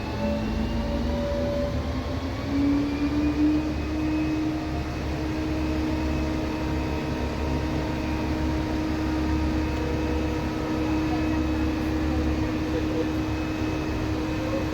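Ferrari Daytona SP3's 6.5-litre V12 running under way, its note rising in pitch over the first few seconds and then holding steady as the car cruises, over a constant low rumble.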